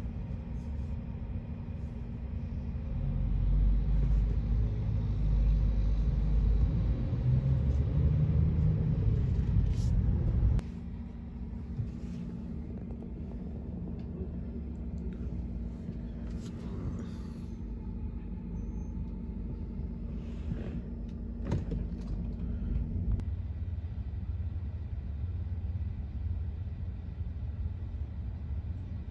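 Low rumble of a car's engine and road noise heard inside the car, with a few short knocks and clicks. The rumble swells about three seconds in and drops off suddenly at about ten seconds, and the sound changes again abruptly at about twenty-three seconds.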